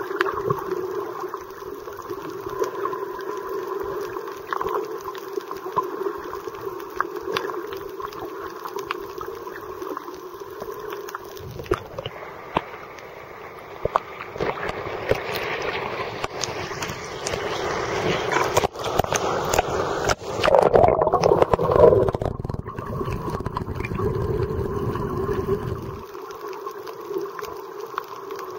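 Water heard with the microphone underwater, a steady hum running beneath it. About halfway the microphone breaks the surface and water sloshes and splashes around it for several seconds, then it goes back under and the steady hum returns.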